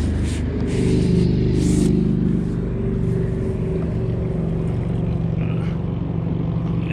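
A motor engine running steadily, its pitch rising about a second in and then holding, with a few short hissing noises in the first two seconds.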